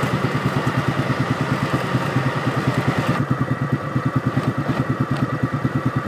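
Vehicle engine idling steadily with an even, rapid pulse.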